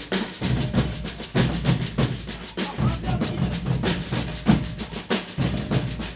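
Brazilian percussion group playing drums together in a rapid, steady rhythm of dense strokes, deep drums underneath and sharper snare-like hits above.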